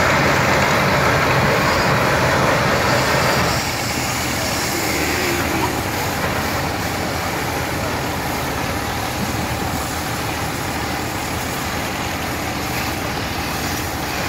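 Crawler steam shovel working as it lifts and swings a loaded dipper: a steady steam-machinery rushing noise that drops abruptly about three and a half seconds in and then runs on evenly.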